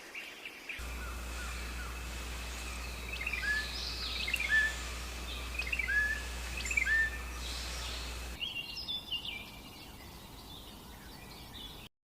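Birds chirping and calling with short, repeated whistled notes over a steady low hum. About eight seconds in, the hum stops suddenly and higher, quicker chirps take over.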